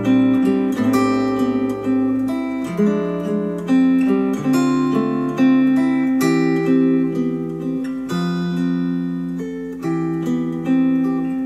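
Acoustic guitar music played back through ELAC Uni-Fi 2.0 UB52 bookshelf speakers, plucked and strummed notes ringing with a new note or chord about every second.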